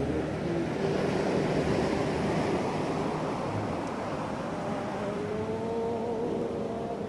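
A steady rushing noise with a faint motor hum underneath, its pitch drifting slowly upward in the second half.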